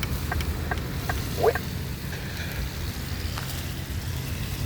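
Accessible pedestrian signal push button at a crosswalk: a few short ticks, then a recorded voice says "Wait" about a second and a half in. Traffic rumbles steadily underneath.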